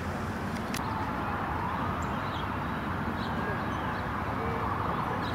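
Distant emergency siren wailing up and down over steady outdoor background noise, with faint bird chirps.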